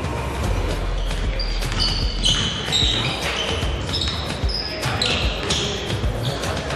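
Basketball game sounds in a gym: sneakers squeaking in short high-pitched chirps on the hardwood floor, and the ball bouncing, with voices in the echoing hall.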